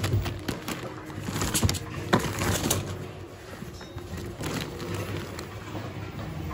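Scattered knocks, clicks and rustles of plastic and paper objects being handled and shifted while rummaging through a bin of mixed secondhand goods, over a faint steady hum.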